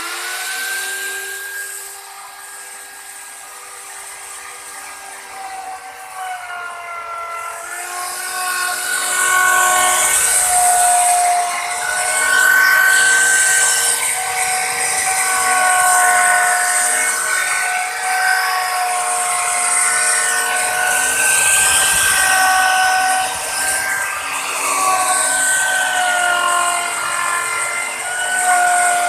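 Handheld electric plunge router running at full speed with a high steady whine. From about eight seconds in it cuts into the wood and gets louder, with a hiss of chips, and its pitch dips and recovers as it is pushed through the cut.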